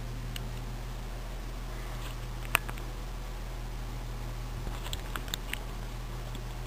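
A steady low hum, with a single sharp click about two and a half seconds in and a few faint ticks a little before the end.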